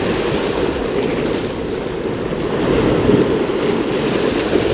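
Sea surf washing against the shore, mixed with wind buffeting the microphone: a loud, steady rush with no distinct events.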